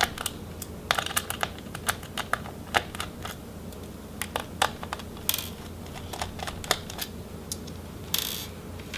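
Small Phillips screwdriver backing out the laptop hard drive's mounting screws: irregular light clicks and taps of metal on metal and plastic, with two short scraping sounds about five and eight seconds in.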